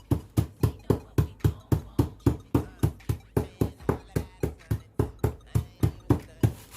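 An ice cream scoop used as a hammer, pounding Takis and Flamin' Hot Cheetos chips inside a plastic zip-lock bag, about four to five strikes a second, crushing the chips. The strikes stop shortly before the end.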